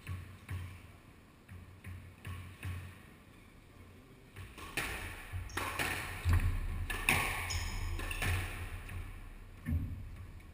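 Squash ball knocks on a wooden-floored court: a few separate hits early on, then a rally from about four and a half seconds in, with the ball struck by rackets and hitting the walls and the players' feet moving on the floor.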